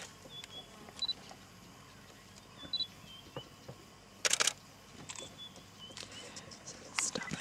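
Camera shutter clicks: a quick burst of them about four seconds in and another near the end, with a few single clicks between. Faint short high chirps sound now and then in the background.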